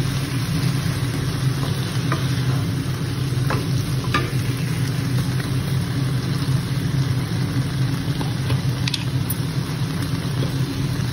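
Mushrooms, bell pepper and onion sizzling in a frying pan, stirred with a wooden spatula at the start, with a few sharp pops scattered through. A steady low hum runs underneath.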